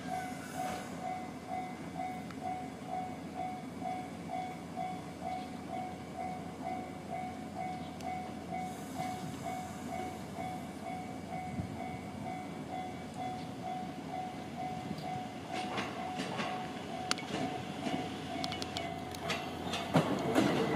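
Level-crossing alarm ringing steadily with an evenly repeating tone. A JR E257 series electric limited express pulls out toward it, its wheels clacking over rail joints from about 15 seconds in and growing louder near the end.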